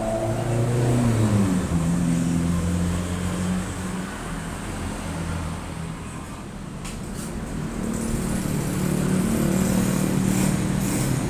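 An engine running: its pitch drops over the first second or two, holds steady, and builds again near the end.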